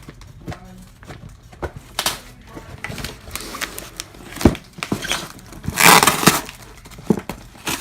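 Cardboard shipping box being cut and torn open with a steak knife: irregular scrapes, crackles and rips of cardboard and packing tape, the loudest rip about six seconds in.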